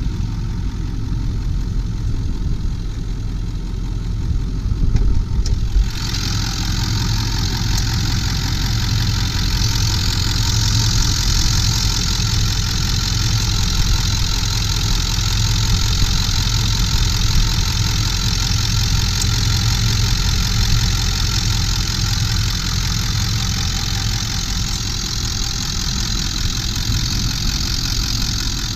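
1999 Ford F-250 Super Duty's 7.3-litre Power Stroke turbo-diesel V8 idling steadily. A higher hiss comes in about six seconds in and stays.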